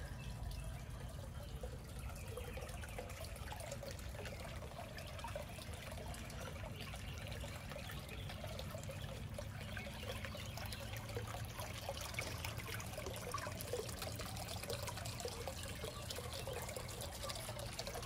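Garden fountain water trickling steadily.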